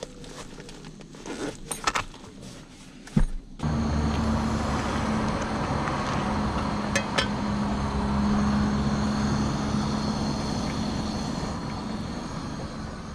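Light handling rustles and clicks. Then, from about four seconds in, a steady running noise with a low hum: a gas cartridge stove burning under a mess tin of water, with a car engine idling alongside. A light metal clink or two comes as the mess tin lid is lifted.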